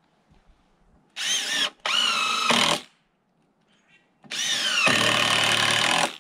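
Cordless drill driving screws into treated lumber: three runs of the trigger, the last the longest. At the start of each run the motor's whine drops in pitch as the screw bites and loads it, then it holds steady.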